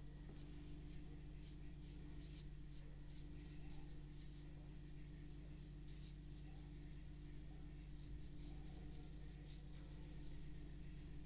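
Faint, irregular scratchy swishes of a watercolor brush stroking wet paint across paper, over a steady low hum.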